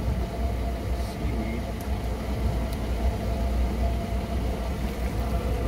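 Boat engine idling: a steady low rumble with a faint, even hum.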